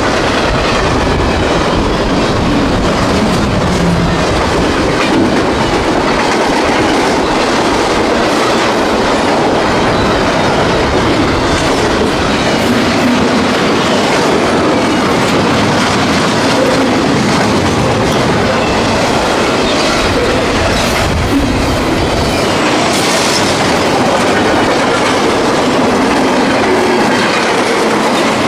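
CSX intermodal freight train's cars rolling past at speed: a steady, loud rumble of wheels on rail with continuous clickety-clack over the rail joints.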